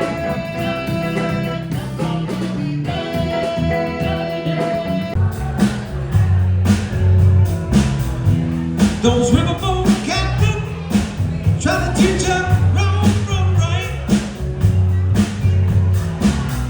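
Live band playing a rock-blues song: held guitar chords, then the full band comes in with a heavy bass and a steady beat about five seconds in.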